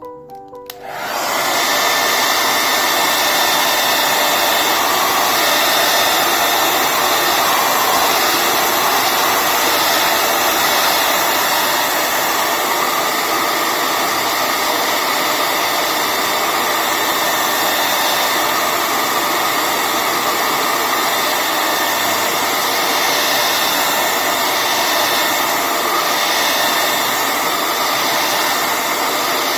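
Hair dryer switched on about a second in and blowing steadily, a rush of air with a steady whine. It is heating the back glass of a Samsung Galaxy S8 to soften the glue.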